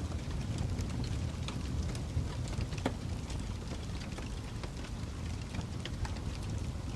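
Wood fire burning in a fireplace, logs crackling with irregular sharp pops over a steady low rumble of the flames; one louder pop about three seconds in.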